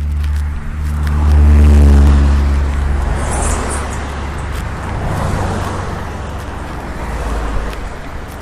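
A motor vehicle passing close by: its engine hum is loudest about two seconds in, then gives way to a steady rushing road noise.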